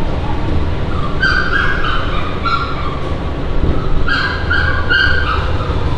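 Baby monkey crying out in short, high, stepped cries: a run about a second in, another near the middle, and a longer run around four to five seconds in. A steady low rumble runs underneath.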